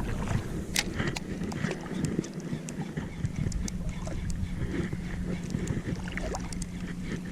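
Wind buffeting the microphone over water splashing and lapping around a wading angler, with scattered small clicks and splashes. A steady low hum comes in about halfway through.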